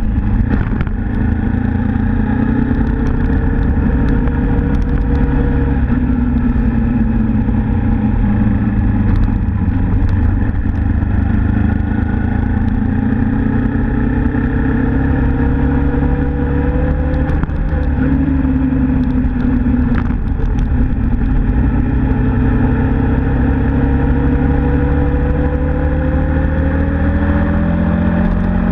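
Suzuki Inazuma GW250's 248 cc parallel-twin engine pulling through the gears on the move. Its pitch rises under acceleration and drops back at each shift, several times, over a steady rumble of wind and road noise.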